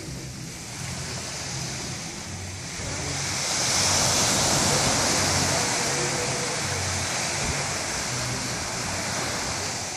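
Small waves breaking and washing up on a sandy beach, growing to their loudest about four seconds in as a wave breaks, then easing off.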